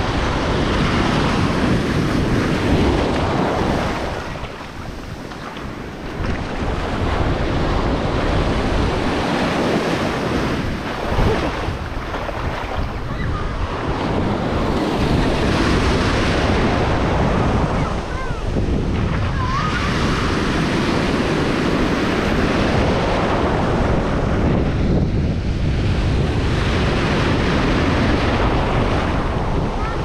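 Ocean surf breaking and washing up the shore at the water's edge, swelling and falling away wave by wave, with wind buffeting the microphone.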